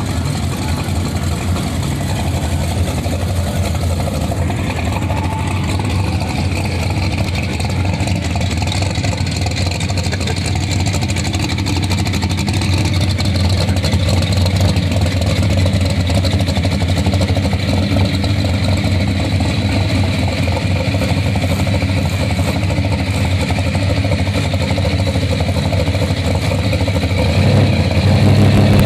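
Car engine idling steadily, a little louder near the end.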